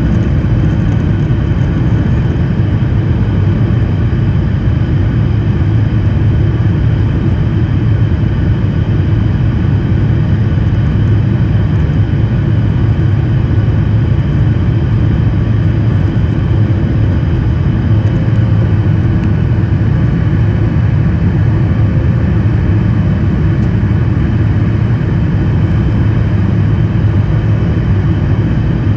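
Boeing 737 MAX 9's CFM LEAP-1B turbofan engines heard from inside the cabin over the wing, running steadily at takeoff climb power as the airliner climbs away. A loud, steady, deep rumble with faint steady tones above it.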